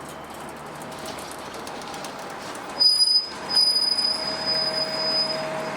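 A heavy vehicle's metal-on-metal squeal in traffic: a high, thin squeal starts about three seconds in, breaks off briefly, then returns and fades, over steady street noise.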